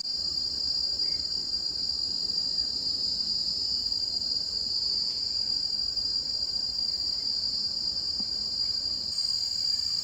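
Steady, high-pitched chorus of forest insects.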